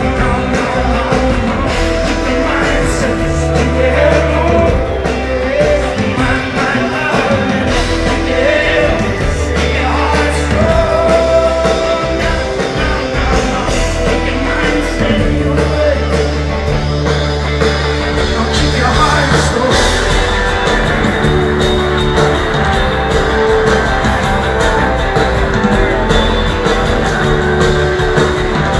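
Live band performing through a festival PA, heard from inside the crowd: a steady beat with bass and guitars and singing.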